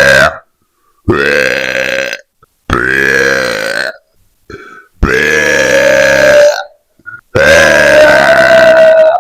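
Loud, drawn-out burps, one after another: the tail of one, then four more with short pauses between, each a second or more long, the last nearly two seconds.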